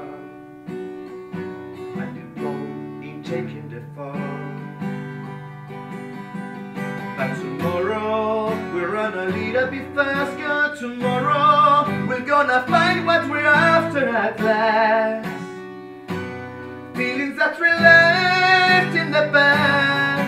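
Acoustic guitar strummed with a man singing over it, the performance growing louder in the second half.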